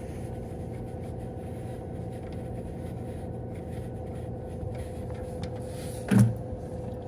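Steady low mechanical hum holding one constant tone, with a single short, loud thump about six seconds in.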